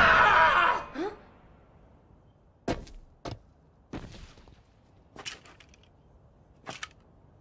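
A man's animated yell that breaks off about a second in, then a handful of sharp, separate knocks a second or so apart as the armour's severed head hits the floor and the armour clanks.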